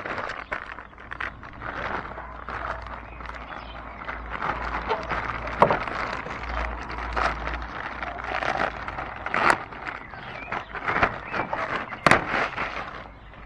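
Plastic wrapping crinkling and crackling as it is pulled off a new pleated cabin filter by hand, with a few louder snaps of the film.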